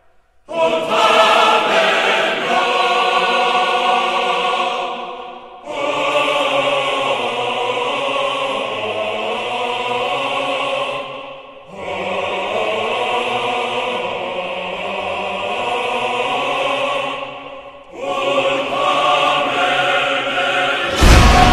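Choir singing long, held chords in four phrases with short breaks between them. A loud hit of music comes in just before the end.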